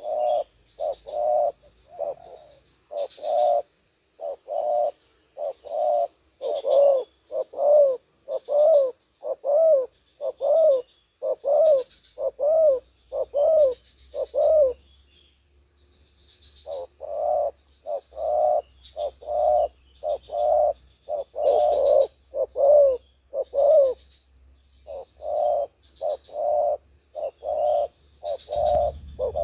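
Spotted doves cooing: a long run of short, low coos, about two a second, with a break of a couple of seconds midway. A faint steady high buzz runs behind them.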